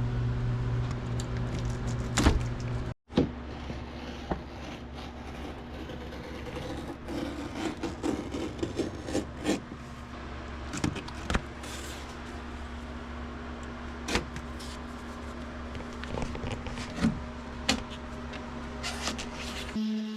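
Steady machine hum with scattered sharp clicks and knocks from hand work. The sound cuts out abruptly for an instant about three seconds in, and the hum comes back changed.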